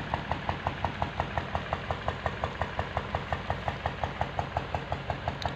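An engine idling steadily with an even knock, about seven beats a second.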